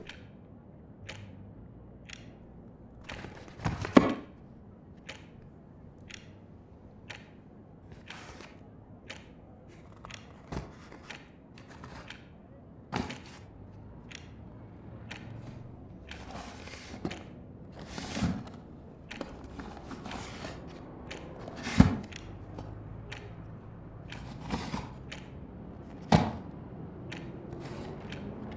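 Irregular knocks, taps and thumps of someone pottering about a room and handling objects, with a few louder thumps, the loudest about four seconds in and again past the middle, over a faint steady background.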